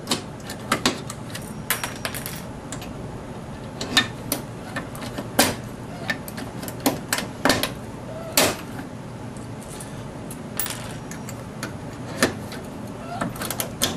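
Hand rivet gun worked in repeated hard strokes to set aircraft blind rivets through a mounting bracket into a kayak hull, giving irregular sharp clicks and snaps.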